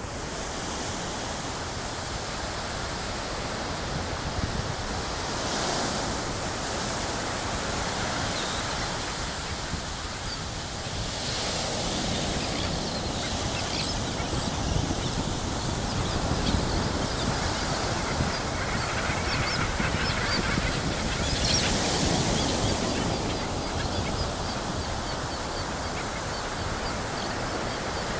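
Low surf breaking and washing up the beach, with a flock of seabirds calling: many short, high calls from about twelve seconds in until near the end. Three louder rushes of surf or wind come about six, twelve and twenty-two seconds in.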